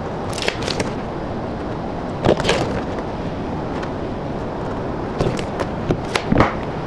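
Tape measure and pencil handled on an OSB panel: a few short scrapes and light knocks over steady background noise.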